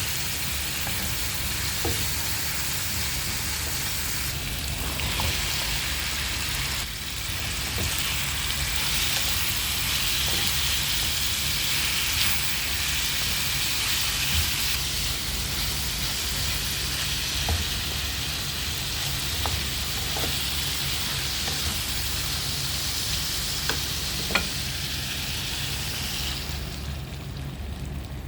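Food frying in hot oil in a pan for pancit bihon, sizzling steadily while it is stirred, with occasional clicks of the utensil against the pan. The sizzle dies down near the end.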